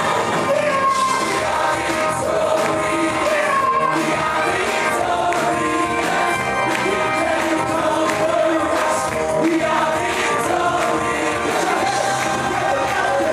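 Live gospel music: a vocal group singing together over a band of drums, bass guitar, electric guitar and keyboard.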